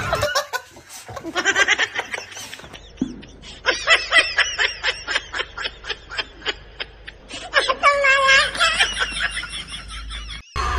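Laughter: quick repeated snickers for several seconds, with a higher-pitched stretch of laughing about eight seconds in.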